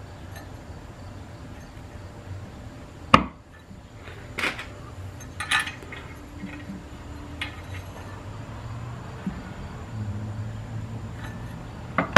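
A handful of sharp metallic clicks and clinks as the apply piston housing of a 47RE automatic transmission is pressed by hand onto its gasket on the case and worked into line. The sharpest click comes about three seconds in.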